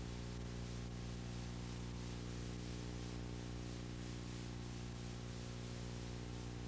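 Steady electrical hum with a stack of even overtones over a faint hiss, unchanging and with no other sound: the programme's audio track has gone dead.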